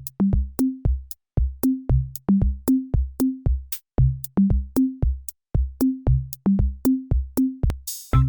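Electronic background music: a drum-machine beat with short plucked bass notes, repeating at a steady tempo, with a rising noise sweep near the end.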